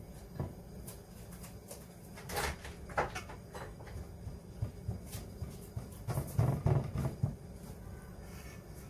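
Hands spreading and pressing shredded kataifi pastry into a round baking pan: scattered rustles of the dry strands and soft pats, with a run of louder thumps about six seconds in.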